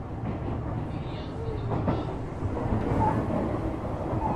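Shizuoka Railway A3000-series electric train running on the line: a steady rumble of wheels on rails with a few light clicks.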